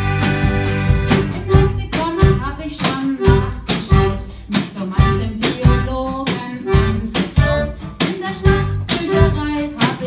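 Band music with plucked strings and a steady, driving beat.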